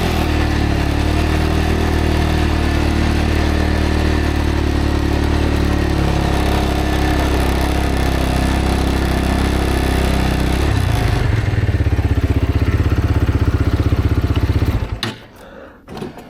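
Road motorcycle engine running at steady revs under load, dropping to a low, lumpy beat about 11 seconds in and cutting out abruptly about 15 seconds in.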